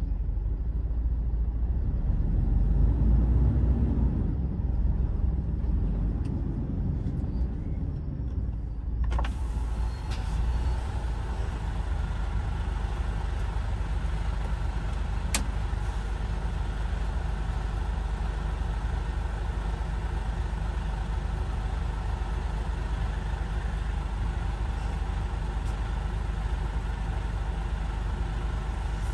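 Mercedes-Benz Actros truck's diesel engine running low and steady, heard from inside the cab. About nine seconds in a knock sounds, after which more hiss comes in, and a single sharp click follows a few seconds later.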